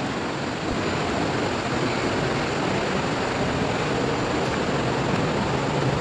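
Steady, even rushing noise of a waterfall, with no breaks.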